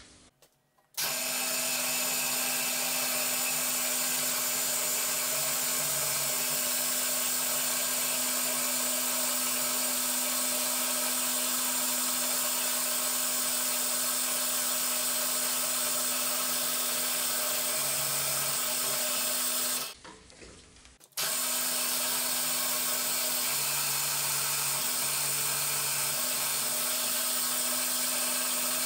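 Cormak ZX 7045 mill-drill spindle running steadily with a constant hum as it drills holes into a metal plate held in the vise. The sound starts about a second in, and drops out suddenly for about a second two-thirds of the way through before running on.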